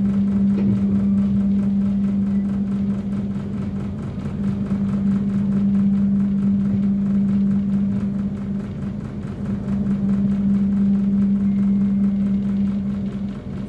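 Steady mechanical hum of a long-distance passenger train, with one strong, unchanging low tone.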